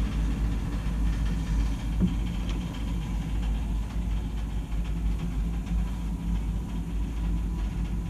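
A 2003 Carrier gas furnace running, giving a steady low hum with a faint steady whine above it. Its inducer motor is noisy, which the owner puts down to failing bearings.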